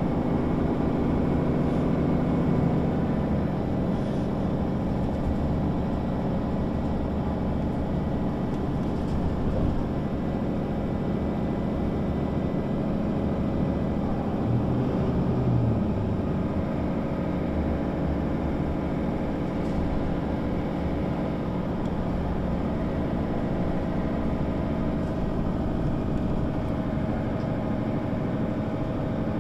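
Mercedes-Benz O 530 G Citaro articulated bus engine running steadily, with a brief shift in its note about halfway through.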